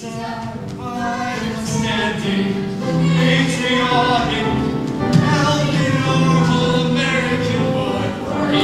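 A high school cast singing a musical-theatre number together in chorus, many voices holding and changing notes.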